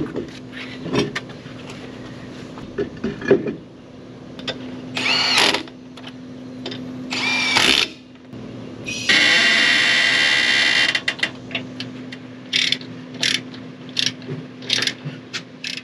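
Cordless impact wrench on a travel trailer's wheel lug nuts during a tire change: short whirring spins that rise in pitch, then about two seconds of rapid hammering near the middle as a nut is run tight. Metal clicks and clinks of nuts and tools come in between, over a steady low hum.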